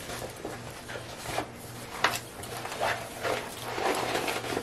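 Diamond painting canvas rustling and crinkling as it is handled and rolled backwards to flatten it, with a couple of short sharp ticks about two seconds in.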